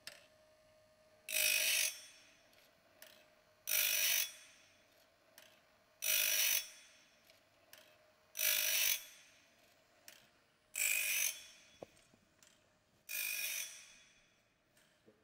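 Woodland Mills RS30 PRO blade sharpener's CBN grinding disc grinding a sawmill bandsaw blade in high-speed mode: a short grinding rasp about every two and a half seconds, six in all, as the automatic blade advance brings each tooth to the wheel. A faint steady motor hum runs between the grinds.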